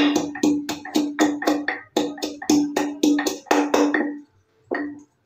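A piece of fresh ginger being crushed with a wooden pestle: quick, even knocks, about four or five a second, each with a short ringing tone. They stop about four seconds in, followed by one last knock.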